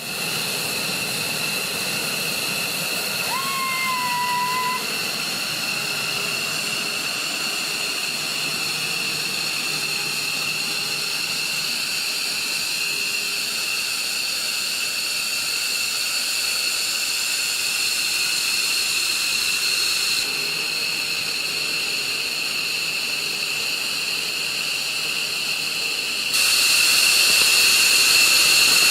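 F-15C fighter jets' turbofan engines running on the flight line: a steady rushing hiss with a high, steady whine. A short tone rises and then holds about three seconds in, and the sound gets louder near the end.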